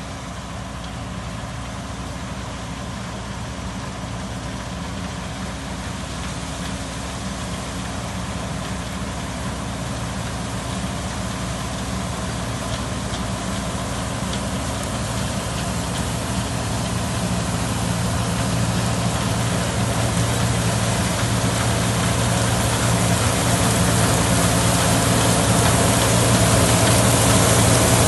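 John Deere combine harvester cutting rapeseed, its engine and threshing machinery running steadily and growing louder as it approaches. A rushing hiss from the header and crop builds as it draws close near the end.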